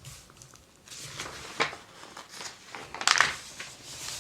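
Paper catalog pages being handled and turned, rustling and crinkling, loudest about three seconds in.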